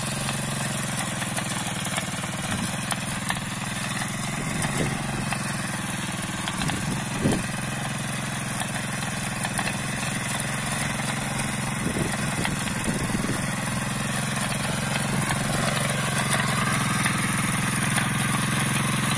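Mini power tiller's small air-cooled petrol engine running steadily under load as its rotary tines dig into dry soil, with a few sharp knocks. It gets slightly louder in the last few seconds.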